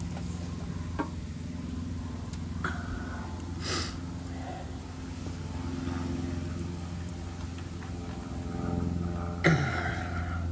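A few metal clicks and a loud knock, the loudest about nine and a half seconds in, as a 12 mm wrench is worked on the generator's stubborn oil drain plug. A steady low hum from an unseen machine runs underneath.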